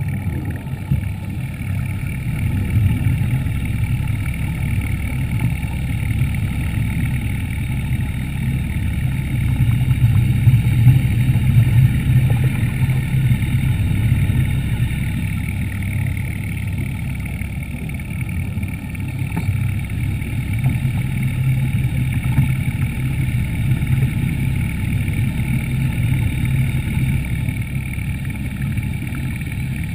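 Underwater scooter running steadily: a continuous low rumble with a faint whine above it, louder for a few seconds around the middle.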